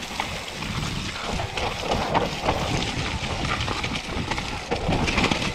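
Mountain bike riding fast down a rough forest trail: tyres rumbling over dirt and wet mud, with the bike rattling and knocking over bumps and roots.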